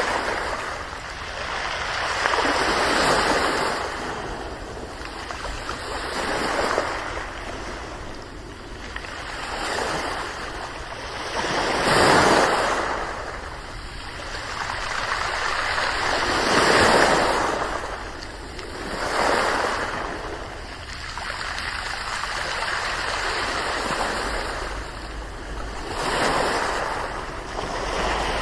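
Ocean waves breaking and washing up one after another, each surge swelling and then fading away every few seconds, with the loudest breakers about twelve and seventeen seconds in.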